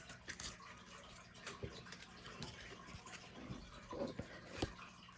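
Faint handling noise of trading cards being shuffled through: soft rustles and a few light taps and clicks.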